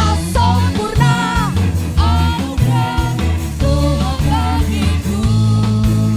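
Live worship band music: a singer over a drum kit and accompaniment, playing an upbeat gospel song.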